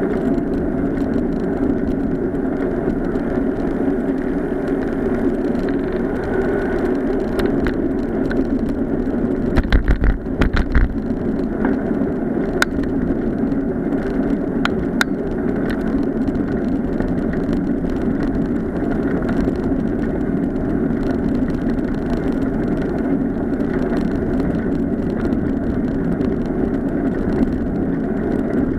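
Bicycle riding along a tarmac path: a steady rumble of tyres and wind, with a quick run of loud knocks and rattles about ten seconds in and a couple of single clicks soon after.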